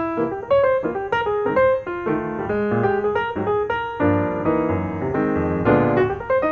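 Background piano music: a melody of quick, ringing notes.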